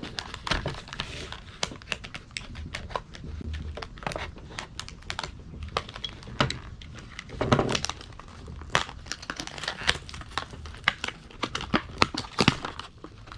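Product packaging being cut open along its side with a knife and pulled apart: irregular crinkling and crackling with many sharp little clicks.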